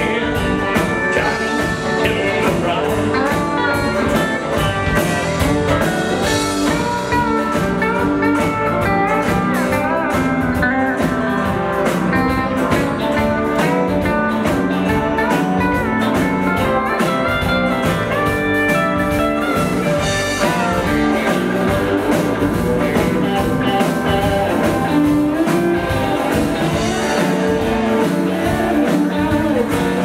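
Live country-rock band playing: acoustic guitar, electric guitar, electric bass and drum kit, with a steady beat and no break.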